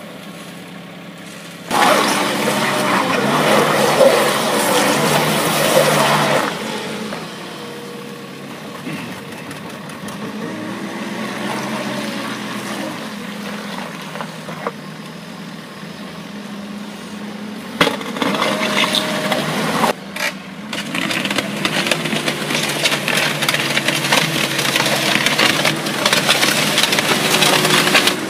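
Schäffer 2445 Nordic HD compact wheel loader's diesel engine running, its pitch rising and falling as the hydraulics work a screening bucket. Loud scraping and rattling of sand and soil on the bucket's grid come about 2 s in for several seconds, and again from about 18 s in.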